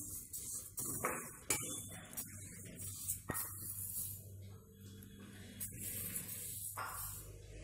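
A metal ladle stirring and scraping dry split moong dal in a non-stick pan, the grains shuffling and rattling with irregular scrapes and clicks. The dal is being dry-roasted until golden.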